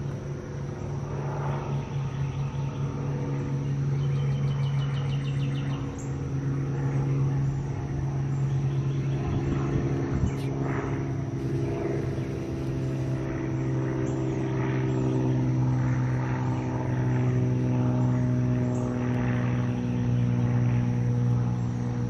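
A steady low motor drone, like a distant engine, running through the whole stretch and swelling a little in the second half.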